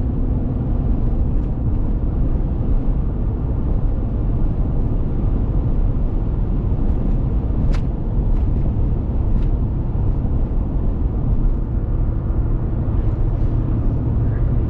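Steady road and engine noise heard inside a Ram pickup truck's cab while it cruises at highway speed.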